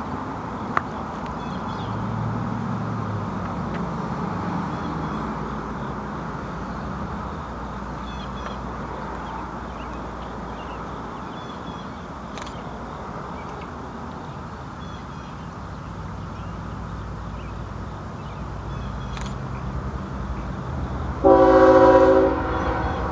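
Low steady rumble, then near the end one loud blast, about a second and a half long, of a CSX ES44AC diesel locomotive's multi-tone air horn on an approaching loaded coal train.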